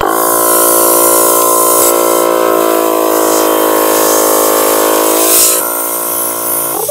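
T-Max portable 12-volt air compressor switched on and running, a steady motor hum with a hiss of air on top, its pitch sagging a little in the second half; it cuts off abruptly near the end. It is a test run showing the compressor works.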